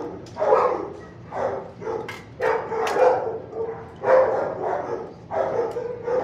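Dogs barking repeatedly in shelter kennels, about one bark a second, with a few sharp clicks in between.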